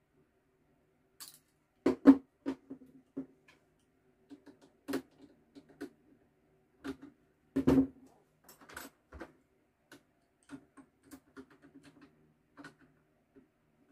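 Pliers and a screwdriver clicking and knocking against the open metal chassis of a Bosch amplifier: irregular taps and clicks, with louder knocks about two seconds in and again around the middle.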